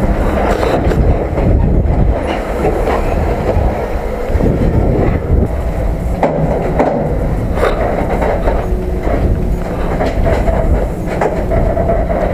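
Freight train running, heard from on board between the wagons: steel wheels rumbling on the rails with a constant rattle and clacking.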